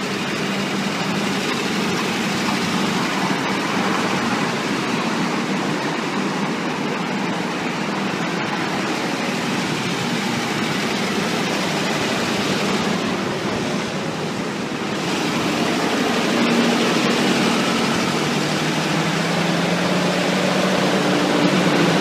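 Parked ambulances' engines idling, a steady mechanical drone with a low hum that grows a little louder over the last few seconds.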